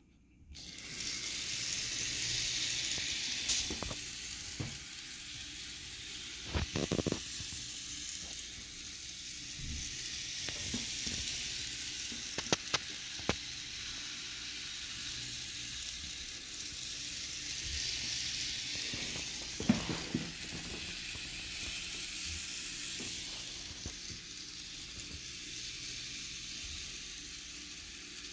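Steady hissing noise with a few light clicks and knocks now and then.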